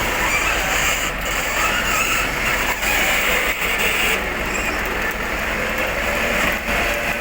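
Steady vehicle noise: a motor vehicle running, heard as an even, continuous rush with a few brief dips.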